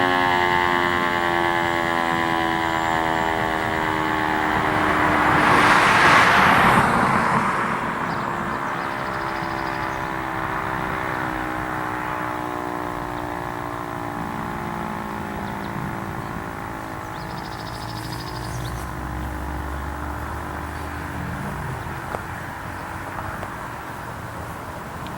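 Screamer S-5 outdoor warning siren winding down after its alert signal: its several tones slide slowly lower in pitch and fade away. A vehicle passes about five to seven seconds in, the loudest moment.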